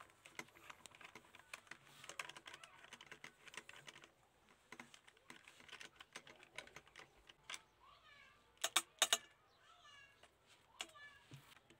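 Screwdriver tip grinding and clicking in a small screw as it is backed out of the metal base of a rusty die-cast model car, in short bursts of scraping. Near the end come a couple of sharp clicks as the loosened screw drops onto the hard work surface.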